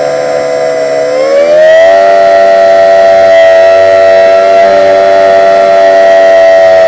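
RC model's brushless electric motor and 9x6 propeller whining in flight; the pitch rises about a second in as the throttle opens, then holds steady at the higher speed.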